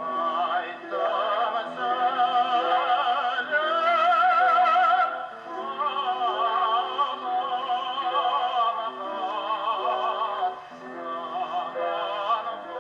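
Late-1950s shellac gramophone record playing a song: a trained singer with wide vibrato over a steady instrumental accompaniment.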